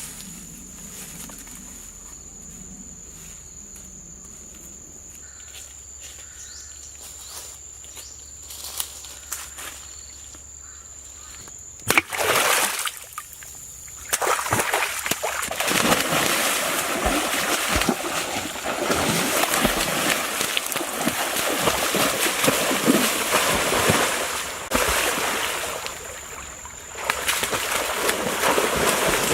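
Water splashing and sloshing. It starts with a sudden loud splash about halfway through, after a quieter stretch of scattered ticks, and runs on dense and loud, easing briefly near the end.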